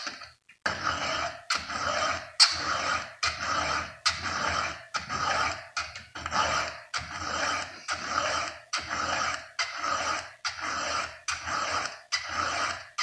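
Round file being pushed by hand across chainsaw chain cutter teeth: a steady rhythm of rasping strokes, a little more than one a second, as the teeth are sharpened.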